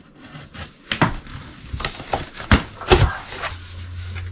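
A cardboard shipping box being opened by hand: several sharp knocks and taps with a short rustle of cardboard and packing. A low steady hum comes in about three seconds in.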